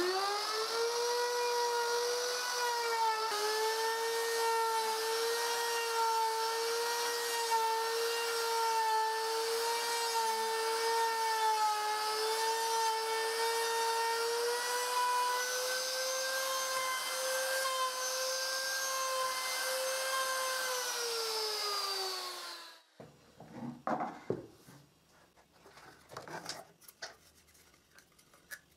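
Hand plunge router running at full speed with a steady high whine while cutting a mortise in a wooden batten, its pitch wavering slightly as the bit bites. Near the end it is switched off and spins down with a falling whine, followed by a few light knocks and rubbing sounds as the wood is handled.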